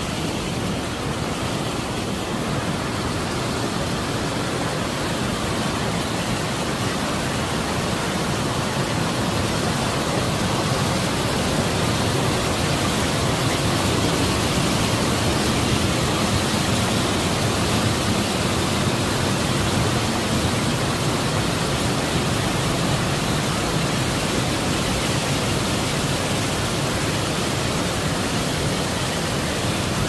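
Small waterfalls and cascades rushing: white water pouring steadily over mossy travertine ledges into a fast stream. The rush grows a little louder through the first half.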